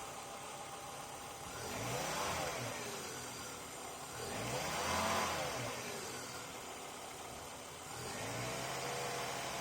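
Volvo 850R's turbocharged five-cylinder engine blipped twice, the revs rising and falling each time, the second blip higher. It then settles to a steady run.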